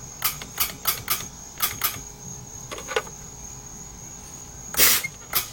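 A series of sharp clicks as the homemade switch box works the Blazer's air-ride valves, then a short, louder burst of noise near the end followed by one more click. A faint steady high-pitched whine sits under it all.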